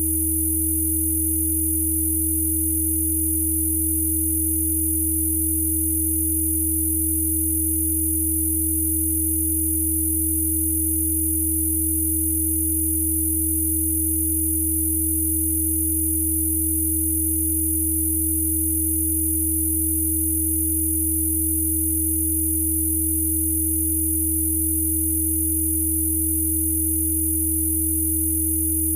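Electronically generated Rife frequency tones: several steady sine tones sounding together without any change. There is a low hum, a clear mid-pitched tone and faint very high whistles.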